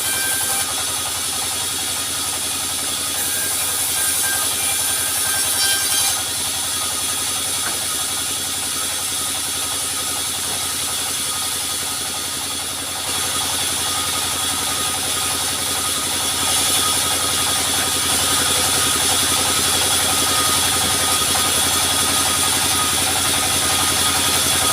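Sawmill's engine running steadily without cutting, its level rising slightly about halfway through.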